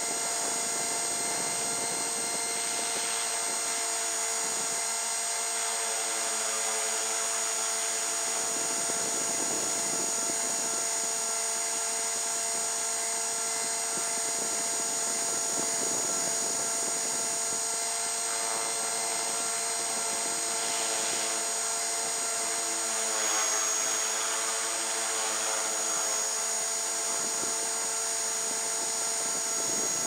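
Align T-REX 450 electric RC helicopter's motor and rotor, heard from a camera mounted on the helicopter: a steady high whine of several tones. Its pitch dips slightly and it gets a little louder about two-thirds of the way through.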